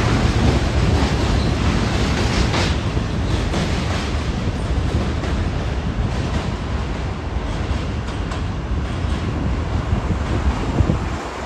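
New York City Subway J train running on the Williamsburg Bridge: a steady rumble of wheels on track, with an occasional click from the rails.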